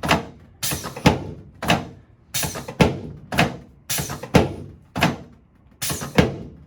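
A chiropractic table banging under repeated thrusts to the pelvis and lower spine: about a dozen sharp thuds, roughly two a second, as the SI joints and lumbar spine are adjusted.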